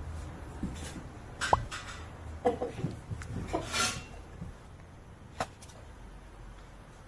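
A few scattered light knocks and clatters, with a short rising squeak about a second and a half in and a brief hiss near four seconds.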